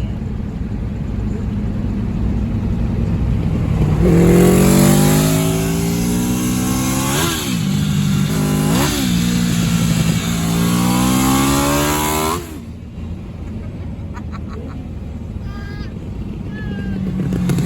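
1984 Honda Nighthawk CB700SC inline-four, fitted with aftermarket F1 exhaust pipes, accelerating hard. Its pitch climbs, dips sharply twice at quick upshifts, and climbs again. A little past two-thirds of the way in, the sound drops suddenly to a quieter, lower running, then rises again near the end.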